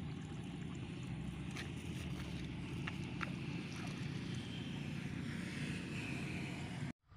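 Steady low wind rumble on the microphone, with a few faint clicks; it cuts off abruptly near the end.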